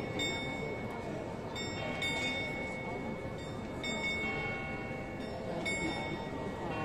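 Bell of the Prague astronomical clock tolling slowly: four strokes about two seconds apart, each left ringing.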